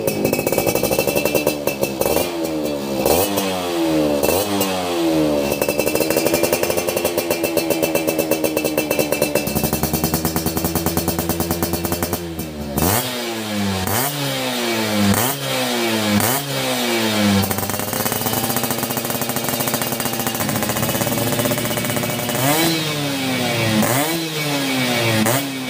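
Motorcycle engine being revved in repeated throttle blips, its pitch rising and falling with each one. A stretch of several seconds at steadier, higher revs sits between two runs of quick blips.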